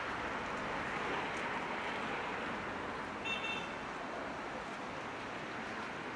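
Steady city street traffic: cars and scooters passing through an intersection. A short high electronic beep sounds once about halfway through.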